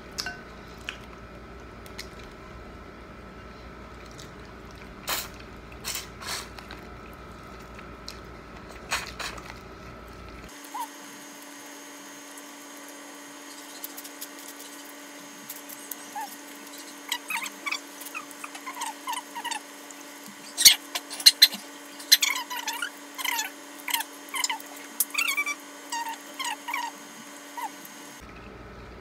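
Close-up eating sounds of whole shrimp being peeled by hand: shells cracking and tearing, with wet sucking and lip smacking. Sparse at first, then a dense run of sharp clicks and squelches in the second half.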